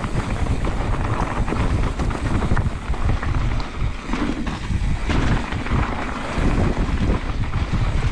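Wind buffeting the microphone of a handlebar-mounted action camera on a mountain bike riding fast down a dirt trail, mixed with the rumble of knobby tyres on the dirt. The noise is loud and gusty throughout, swelling and dipping with speed.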